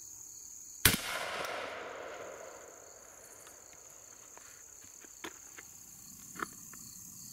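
A single shot from a Beretta 1301 Tactical 12-gauge semi-automatic shotgun firing buckshot, about a second in. The sharp report echoes and fades over about two seconds. A steady high insect drone runs underneath, and a few light clicks come near the end.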